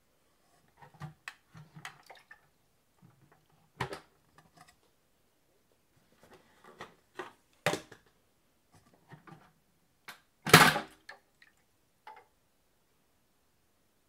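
Plastic parts of a VAX 121 washing vacuum cleaner being handled: scattered knocks and clicks, with the loudest clatter about ten and a half seconds in.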